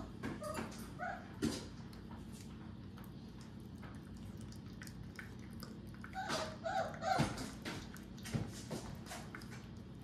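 A three-week-old puppy whimpering in short high squeaks, in a cluster in the first second and another about six seconds in. Between the squeaks there are wet lapping and smacking clicks as it eats mushed puppy food from a bowl.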